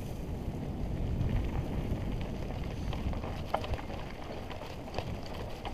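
Wind buffeting a helmet-mounted action camera's microphone as a mountain bike rolls along a dirt singletrack, a steady low rumble with a few sharp clicks and knocks from the bike on the rough trail.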